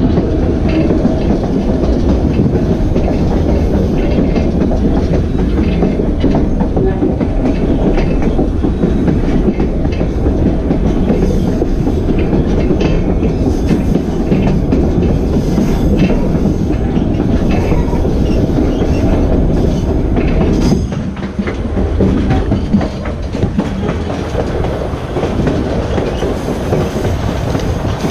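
Narrow-gauge White Pass and Yukon Route passenger train running, heard from aboard: a steady rumble of steel wheels on rail with scattered clacks. It becomes slightly quieter about 21 seconds in.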